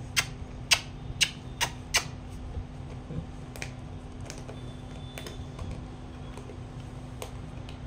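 German Shepherd chewing and crunching something apart in its jaws: sharp crunching clicks, about five in quick succession over the first two seconds, then a few scattered ones.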